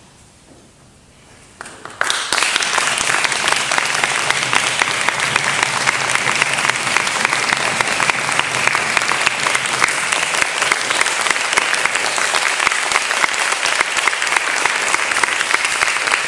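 Concert hall audience applauding: after a brief hush, a few first claps come about a second and a half in, then the whole audience breaks into loud, steady applause at about two seconds. It is the applause that greets the end of a wind band piece.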